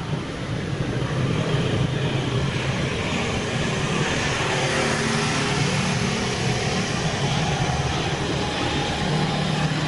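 Street traffic: a steady engine rumble that swells over the first second or two and then holds.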